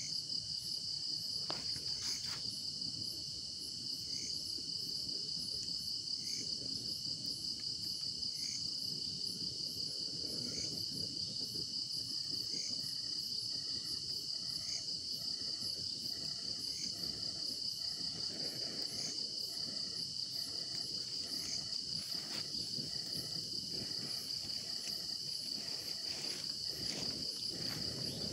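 Crickets trilling steadily at a high pitch, with a second, shorter call repeating about every two seconds, over the low crackle of a wood campfire. A few sharp snaps come near the start and again near the end.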